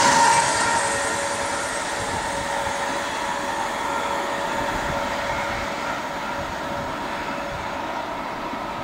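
Electric multiple-unit passenger train running through the station without stopping, its last carriages rushing past close by. The noise drops away about half a second in and fades slowly as the train recedes, with a steady whine carrying on underneath.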